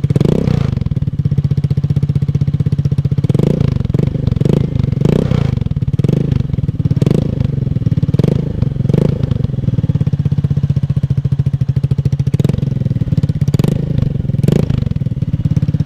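Rusi RFI 175 motorcycle engine running through an aftermarket Akrapovič muffler, idling between repeated short throttle blips that rise and fall back. There are a dozen or so blips, mostly in a run near the middle and a few more near the end. This is an exhaust sound check of the new, more open muffler.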